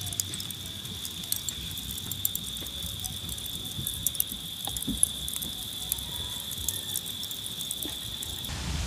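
Wood fire crackling with frequent sharp pops, the fire that breadfruit is roasting on. Over it runs a steady high-pitched whine that cuts off suddenly near the end.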